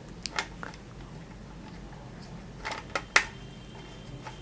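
A few light clicks and taps of plastic parts as the mount's knob is screwed onto the underside of a 10-inch plastic ring light, in two small clusters, near the start and a little before the end.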